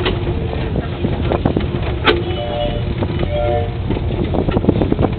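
Mini express ride-on train running with a steady low rumble, its cars knocking and rattling, with a sharp click about two seconds in. A few short held tones sound in the middle.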